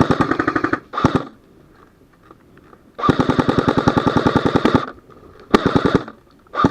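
Airsoft rifle firing on full auto in five bursts of rapid shots: a short burst at the start, a very brief one about a second in, a long burst of about two seconds near the middle, and two short bursts near the end.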